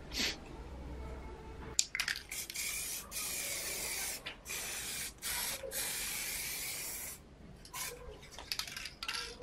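Aerosol spray can hissing in several sprays with short breaks between them, over about five seconds.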